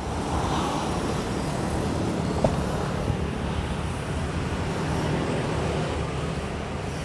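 Road traffic passing on a nearby street, a steady rumble of engines and tyres, with one short click about two and a half seconds in.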